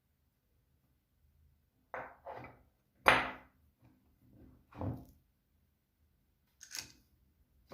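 A handful of separate knocks and clunks, like wood or tools being handled on a bench, with the loudest about three seconds in and a sharper, higher click near the end.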